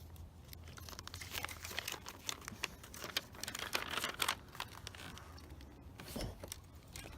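A paper letter being handled and opened: paper crinkling and rustling in a quick run of crackles, thinning out near the end.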